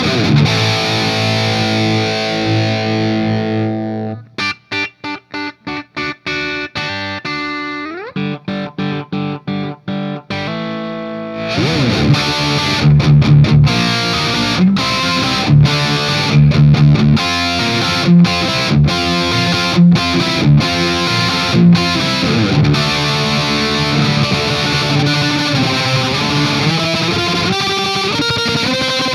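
Distorted electric guitar played through a Marshall Silver Jubilee 2555X 100-watt reissue amp. A held chord rings for about four seconds, then comes a stretch of short, separated picked notes with a slide. A little before halfway it breaks into fast, continuous riffing with accented chord hits.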